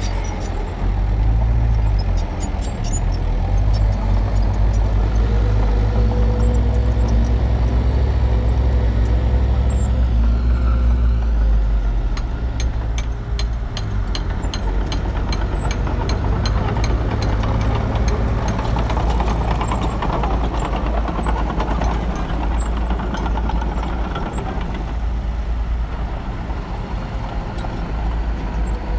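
Small crawler bulldozer's diesel engine working under load as it pushes soil, with a rapid run of clicking over it. The deep rumble is heaviest for about the first twelve seconds, then eases to a lighter, steadier run.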